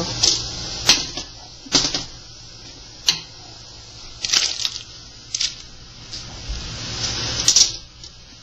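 Chopped raw fish tipped from a glass bowl into a steel pot of nearly boiling water: a handful of irregular clinks and knocks of the bowl and fish against the pot, over a steady hiss.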